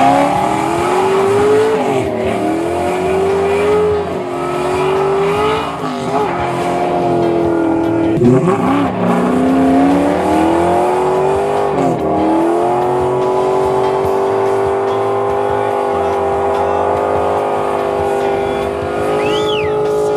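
Ford Mustang's engine revving hard, its pitch climbing and dropping several times, then held high and steady for the last several seconds of a burnout, with tyres squealing.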